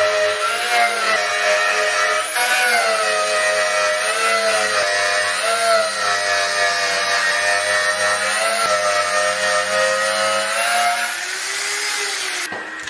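Electric tool spinning an MBX Vinyl Zapper rubber eraser wheel against a car's paint to strip vinyl decals and adhesive. It runs as a continuous motor whine whose pitch wavers up and down, and it fades out near the end.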